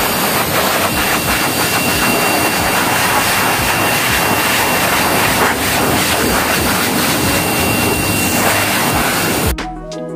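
Dog grooming blower (hose-fed pet dryer) running steadily, a loud rush of air with a thin high whine, blowing through a wet dog's coat to dry it after bathing. It cuts off suddenly near the end and music follows.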